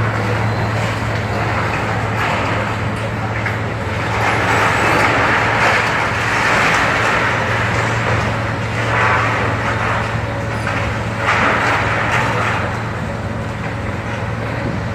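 Heavy demolition machinery working: a steady low engine drone under noisy grinding and crunching that swells louder several times.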